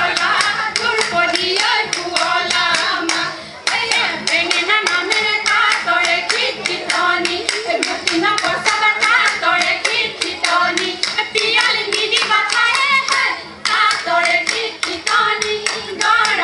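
Women singing an Assamese Jeng Bihu song over a fast, even rhythm of hand claps, about five claps a second, the singing and clapping breaking off briefly twice.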